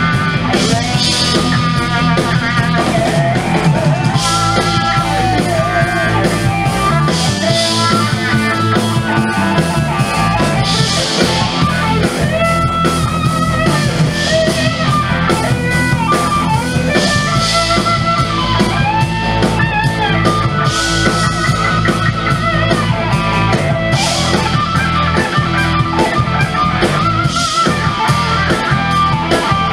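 A live blues-rock band playing loud and steady: an electric guitar plays a lead line of bent, wavering notes over bass guitar, a drum kit and keyboard, with a cymbal accent every three to four seconds.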